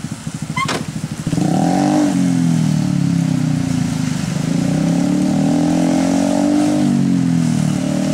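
A small engine running close by; about a second in it picks up and gets louder, then holds with its pitch drifting up and down.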